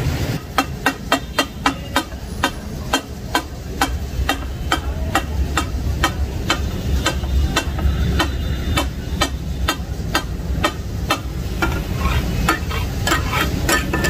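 Metal spatulas clacking and chopping on a large flat griddle (tawa) while cooking takatak: sharp metal strikes about three to four a second, over the sizzle and bubbling of offal simmering in watery gravy.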